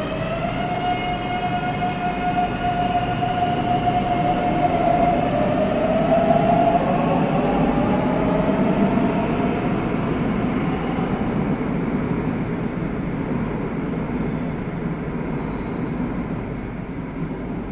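Madrid Metro train pulling out of the platform. A steady electric motor whine rises in pitch about five seconds in as the train accelerates. The rumble of the train grows loudest mid-way and then slowly fades as it leaves.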